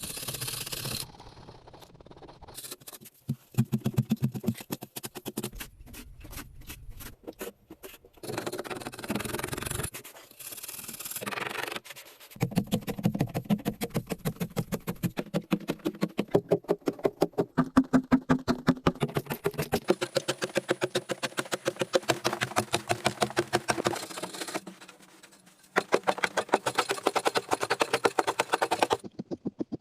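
Rapid repeated scraping and knocking strokes, several a second, in a series of short stretches that break off abruptly.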